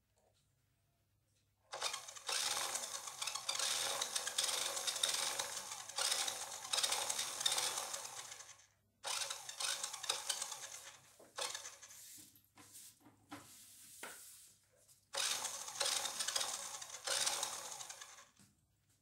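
A toy RC car's small electric drive motor and gears running with the wheels spinning freely off the ground, in three runs of a few seconds each that cut off sharply, with a stretch of irregular clicking between the second and third.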